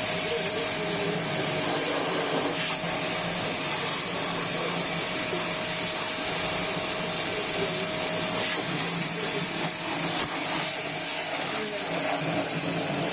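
Kisankraft pressure washer running steadily: a constant motor hum under a loud, even hiss.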